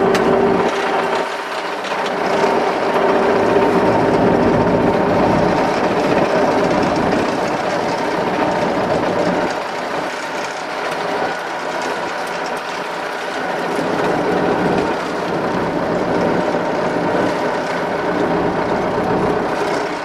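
MTZ-82 tractor's four-cylinder diesel engine running steadily, heard from inside the cab with the cab rattling around it.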